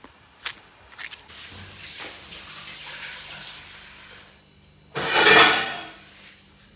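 Water running from a kitchen tap into a sink while dishes are washed, with a louder rush of water about five seconds in. Two light knocks come in the first second.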